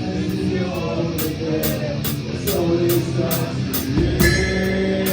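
Metalcore band playing live, heard from the drum kit: distorted guitar chords over cymbal strokes about twice a second. About four seconds in, a pitch slide and a crash cymbal lead into a new held chord.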